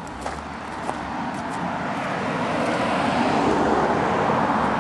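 A steady outdoor rushing noise, with no pitched engine note, that swells over the first three seconds and then holds steady. A few faint clicks come early on.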